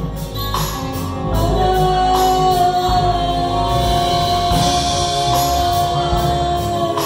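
Live band with acoustic guitar, electric guitar and drum kit, a female singer holding one long note that starts about a second and a half in.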